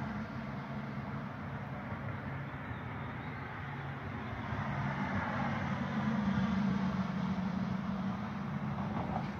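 A road vehicle's engine humming steadily under a wash of traffic noise, growing louder about six seconds in.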